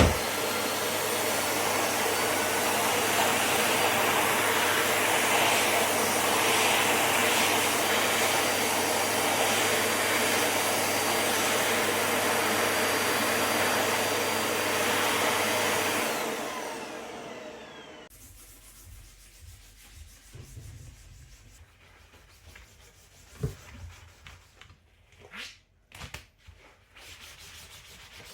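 Vacuum cleaner running steadily with a low hum, then switched off, its motor winding down. Light rubbing and handling sounds and a click follow.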